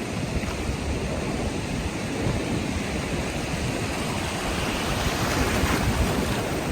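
Ocean surf washing on a beach, with wind rumbling on the microphone; a wave's wash swells to a louder hiss about two-thirds of the way through.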